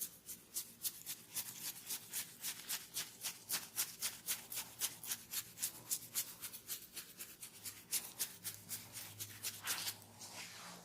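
Hands working a client's head in a quick, even rhythm of rubbing or patting strokes, about four or five a second, as in an oil head massage.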